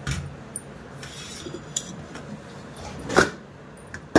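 Stainless steel plates clinking as one is turned upside down onto a larger one: a few light clinks, then a louder clank about three seconds in and a sharp knock at the very end.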